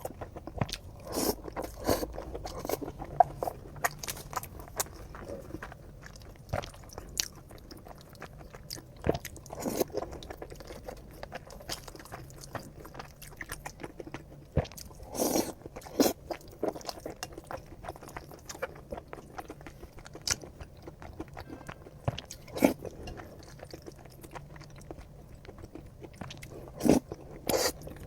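A person eating close to the microphone: repeated bites and chewing with crunching and moist mouth clicks, a few louder crunchy bites standing out now and then.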